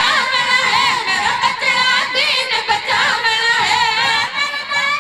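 Boys' high voices singing a devotional qasida together, with a wavering, gliding melody that breaks off at the very end.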